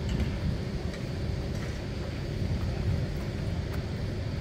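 Steady low rumble of outdoor airfield background noise, with a faint steady hum above it and no distinct events.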